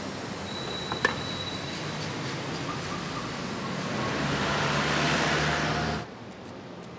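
Street traffic: a motor vehicle's engine hum grows louder over a couple of seconds, then the sound drops off abruptly near the end. A single sharp click sounds about a second in.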